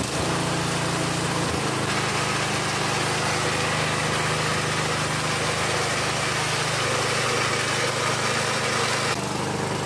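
Small horizontal-shaft gasoline engine running steadily just after being pull-started, belt-driving a chili-and-meat grinder. Its speed shifts slightly about a second and a half in, then holds steady.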